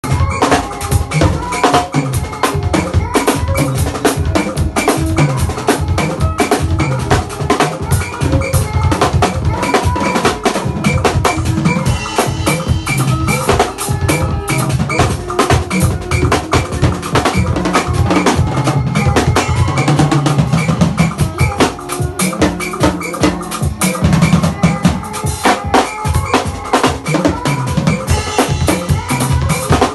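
Music driven by fast, busy drumming on a drum kit, with pitched instruments held underneath.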